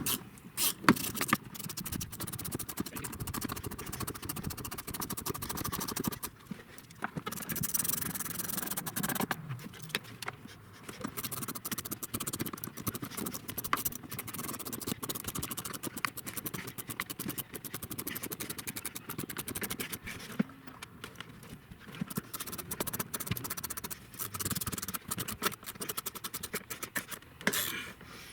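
Hand ratchet turning 8mm bolts into the pickup's center console mount, a dense run of quick clicks with scraping, pausing briefly now and then.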